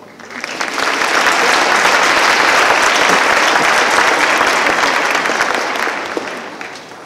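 Audience applauding, swelling to full strength within the first second and dying away near the end.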